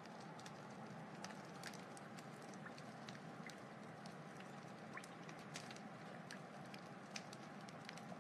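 Wood fire crackling: a soft, steady hiss with irregular sharp snaps and pops several times a second.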